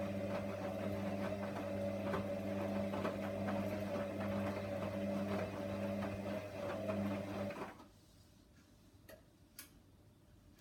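Hoover washer dryer's drum motor running mid-wash: a steady machine hum with light clicking as the drum turns, which stops abruptly about three-quarters of the way through. Two faint clicks follow.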